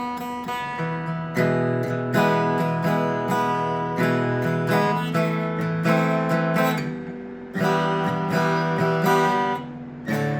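PRS SE Angelus A60E acoustic guitar played with a thick pick: a few lighter picked notes, then chords strummed about once a second, each left ringing.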